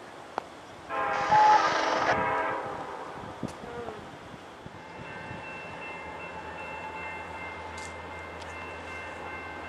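An approaching diesel locomotive sounds one horn blast of about a second and a half. It is then followed by a steady low engine rumble with steady high ringing tones over it.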